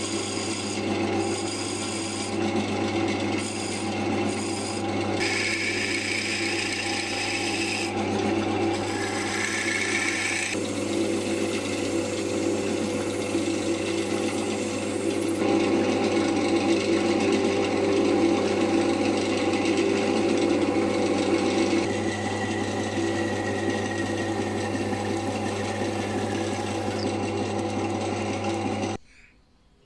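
A wood lathe runs with a steady hum while a turning tool scrapes, and then sandpaper rubs, against the spinning honghuali rosewood goblet stem. The sound drops off abruptly near the end.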